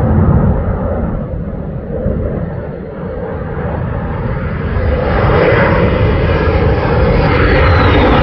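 Twin-engine F-15 Strike Eagle-type fighter jet flying overhead, its engine rumble dipping briefly and then growing louder as it comes closer. Near the end a high whine slides down in pitch.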